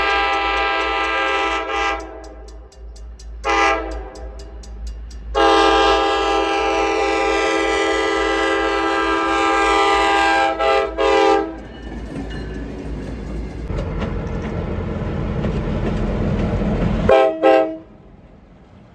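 Locomotive air horn sounding a horn show: a long blast, a short one, then a steady blast of about six seconds broken twice near its end. The low rumble of the train then grows louder, and one more short toot sounds near the end.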